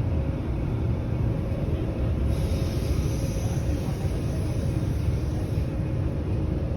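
Steady low rumble inside a moving electric suburban passenger train running along the track, with a faint high hiss joining for about three seconds, starting around two seconds in.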